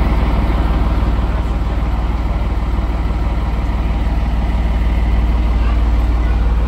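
A large vehicle's engine idling steadily, a deep, even rumble with no change in pace.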